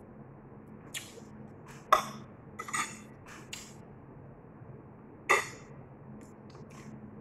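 Metal spoon clinking against a ceramic plate during a meal: a handful of short sharp clinks, the loudest about two seconds in and another just after five seconds.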